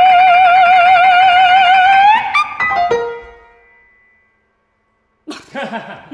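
A mezzo-soprano holds a high sung note with wide vibrato for about two seconds, then piano notes are struck and left to ring away into silence. After about a second of silence, a new sound with sliding pitches comes in near the end.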